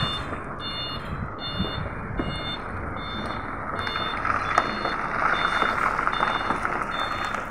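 A tractor-trailer's reversing alarm beeps steadily, about two beeps a second, as the truck backs up. Its engine runs underneath and gets louder about halfway through.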